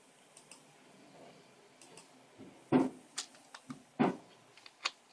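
Scattered light clicks and taps, with two louder knocks about three and four seconds in, followed by a few quicker clicks near the end.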